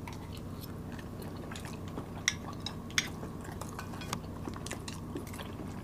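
Mouth sounds of chewing sticky glutinous rice, with scattered clicks and scrapes of metal spoons against the dish. Two sharper clinks come a little past the middle.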